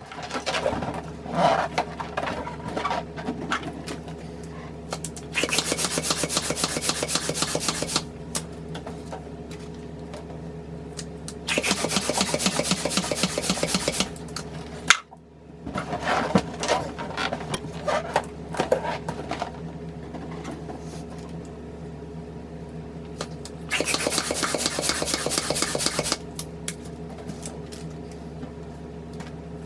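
A hand balloon pump pushing air into white latex balloons in three stretches of a few seconds each, the first about five seconds in. Between them, the inflated latex balloons squeak and rub as they are handled and knotted.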